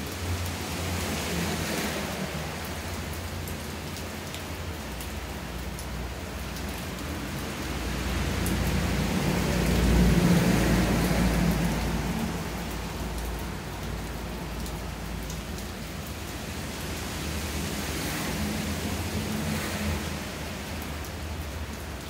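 Steady rain falling, an even hiss. About halfway through, a low rumble swells up and fades away.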